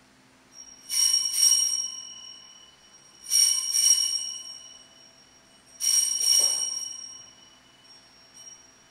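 Altar bells rung three times, each a brief jangling shake whose ring fades over a second or so. They mark the elevation of the consecrated host at Mass.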